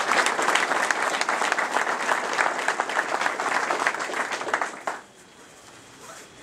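Audience applauding with dense clapping that stops abruptly about five seconds in.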